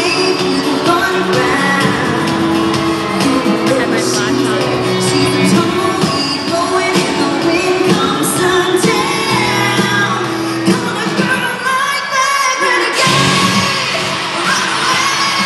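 Live concert: a female singer sings over her band through an arena sound system, heard from the audience. The band grows fuller and brighter about thirteen seconds in.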